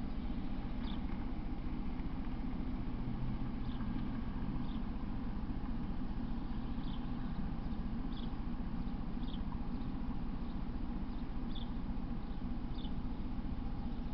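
Outdoor background: a steady low hum with short, faint, high chirps coming irregularly, roughly one every second or so.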